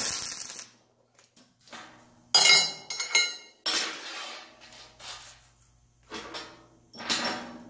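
A brief crackle of a MIG welding arc that stops within the first second, then steel tools and parts clattering and clinking on a steel welding table in a string of sharp metallic knocks.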